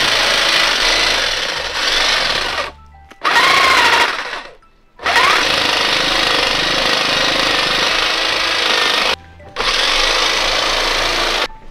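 Corded electric hedge trimmer running, its reciprocating blades buzzing as they are pushed against a cardboard box to cut it open. It is switched off and back on three times, with short gaps about three seconds in, about five seconds in and near nine seconds, then stops just before the end.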